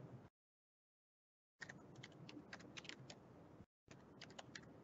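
Faint computer keyboard typing: a quick run of key clicks that starts about a second and a half in, with a brief pause near the end.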